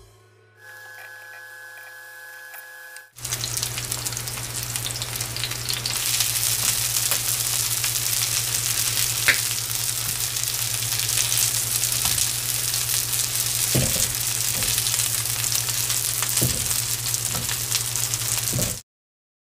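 Chive and squid pancakes sizzling in hot oil in a frying pan. The sizzle starts abruptly about three seconds in and cuts off just before the end, with a few short clicks of a metal turner against the pan as the pancakes are turned.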